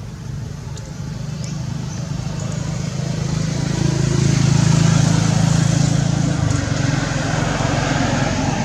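A motor vehicle's engine running, a steady low hum that grows louder toward the middle and then eases off, like a vehicle passing by.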